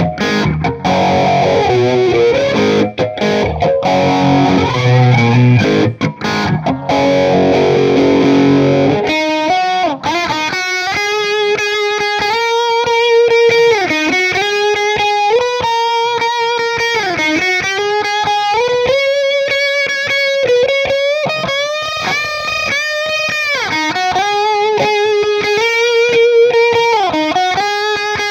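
Electric guitar (a Les Paul replica with a Gotoh Tune-o-matic bridge) through a Marshall Silver Jubilee 2525H amp with distortion, played as a tone test: distorted chords with a few short breaks for about nine seconds, then a single-note lead line with bends and vibrato.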